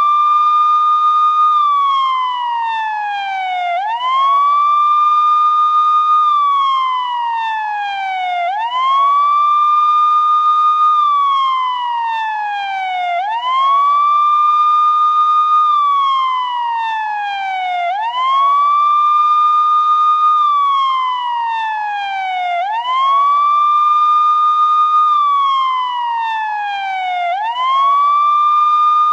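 Indian police siren ringtone wailing: a tone that sweeps up quickly, holds for a moment, then slides slowly down, over and over about every four to five seconds. There is no engine or traffic under it.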